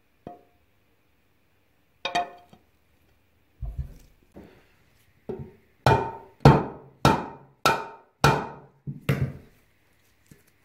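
Metal knocks as the green side frame of a 1950s Ransomes Ace Mk.2 reel mower is fitted onto the end of the red cutting cylinder's shaft. A single ringing clink comes about two seconds in, then a run of about seven sharp knocks, roughly two a second, in the second half.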